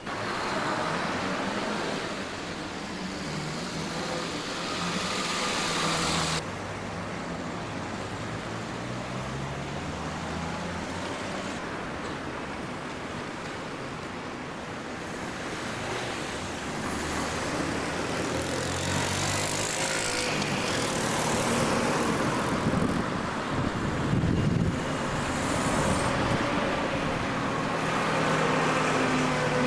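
Town-centre road traffic: cars driving past one after another, engine and tyre noise swelling and fading as each goes by, louder in the second half.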